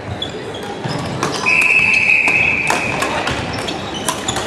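Badminton hall: a single long, high squeak about a second and a half in, typical of a sports shoe on the wooden court, over sharp pops of rackets striking shuttlecocks on the surrounding courts, with a racket hit near the end.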